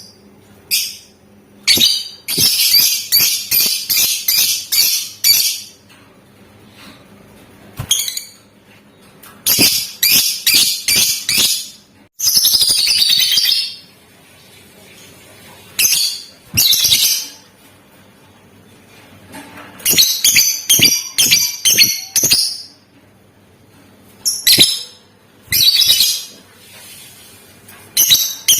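Lovebird chattering in bursts of rapid, shrill repeated notes, the fast ticking chatter fanciers call 'ngetik', with pauses between the bursts. About twelve seconds in there is one unbroken shrill burst lasting over a second.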